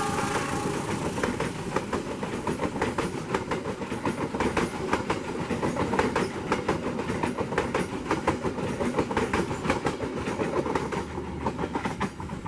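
Indonesian passenger train coaches rolling past close by, their wheels clattering over the rail joints in a fast clickety-clack over a steady rumble.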